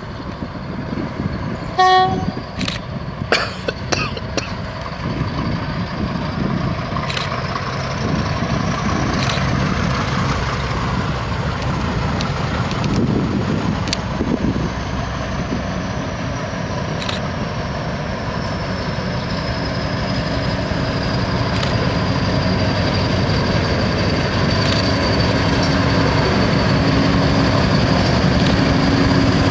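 British Rail Class 50 diesel locomotive with its English Electric 16-cylinder engine, giving one short horn blast about two seconds in. Its engine then grows steadily louder as it draws near, with a high whine that rises and then slowly falls in pitch.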